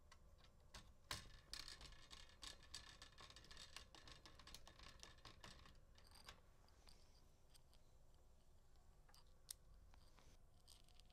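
Faint clicks and scraping of a small Phillips screwdriver starting small screws into the plastic housing of a cellular communicator module. The clicks come in a cluster through the first half, with one sharper click near the end.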